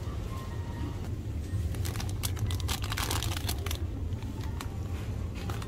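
Irregular crinkling and rustling, like plastic being handled, over a steady low hum.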